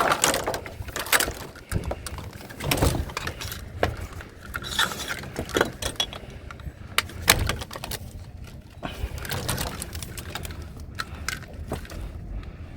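Scrap cables and pipes being handled and dropped: irregular clattering, rattling and knocks, busiest in the first few seconds.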